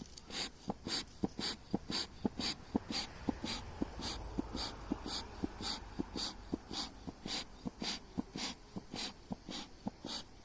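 Beekeeper's smoker bellows being pumped in a steady rhythm, about two puffs a second, each a short hiss of air with a soft knock of the bellows, driving smoke over the bees to move them down into the hive.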